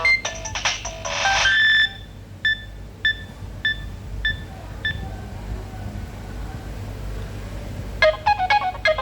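Nokia 2760 mobile phone playing Nokia 7210 ringtones through its small speaker. One electronic melody ends on a held note about two seconds in. Six short, evenly spaced beeps follow, then a pause, and a new ringtone melody starts near the end.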